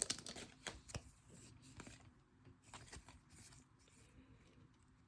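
Faint, sparse flicks and slides of glossy Panini Prizm baseball cards being handled and flipped through one by one.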